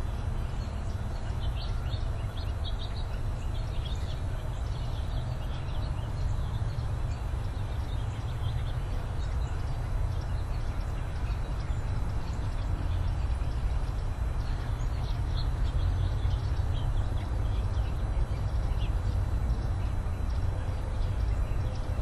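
Outdoor ambience: a steady low rumble with short, high bird chirps now and then, clustered in the first few seconds and again in the second half.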